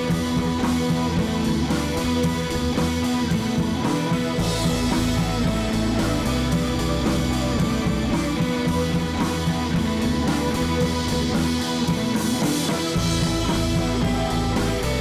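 Background music with guitar and drums at a steady level.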